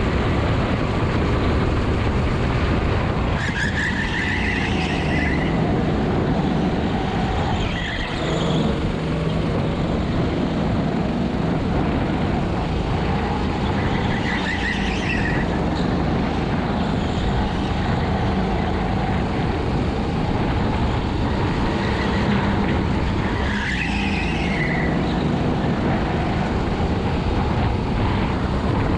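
Kart's Honda GX200 single-cylinder four-stroke engine running hard at race pace. Brief tyre squeals come several times, roughly every seven to ten seconds.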